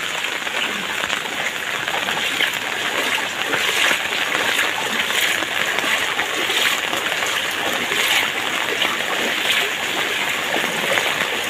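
Rain falling on a flooded street, with regular splashes of footsteps wading through the floodwater, about one step every 0.7 seconds.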